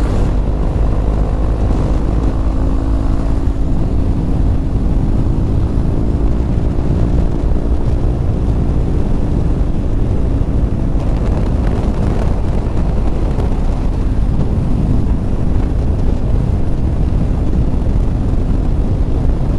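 Heavy wind rush on the microphone of a moving motorcycle, with the bike's engine running steadily underneath; the engine's tone is clearest in the first half.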